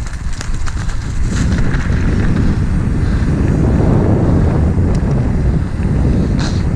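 Wind buffeting the microphone of an action camera on a mountain bike rolling fast downhill over asphalt, with the tyres rumbling. The noise grows louder about a second in as speed builds, with a few faint clicks from the bike.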